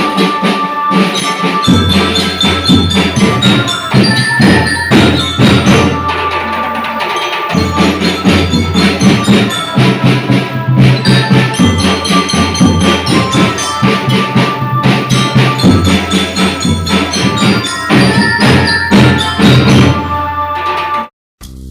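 Music with a steady bass and dense, sharp percussion strokes; it stops abruptly near the end.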